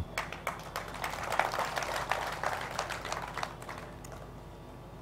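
Crowd applauding: a dense patter of many hands clapping that builds about a second in and dies away before the end.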